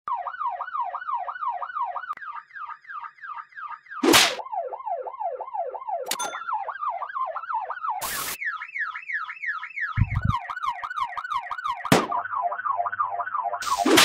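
Electronic police siren in a fast wail, its pitch sweeping up and down about four times a second. It is cut into a run of edited variations every couple of seconds, shifted in pitch and layered with effects. A short loud noise burst marks several of the changes.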